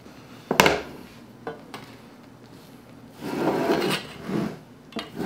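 A metal baking sheet knocks against a wooden counter with one sharp clank about half a second in, followed by a few small clicks. Later a metal spatula scrapes raspily under a baked pizza's crust as the pizza is slid off the sheet onto the wooden board.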